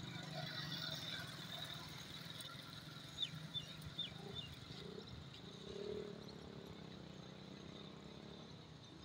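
Low steady hum of motorcycle and motor-rickshaw traffic on the bridge road. A few short, sharp high chirps come about three to four seconds in.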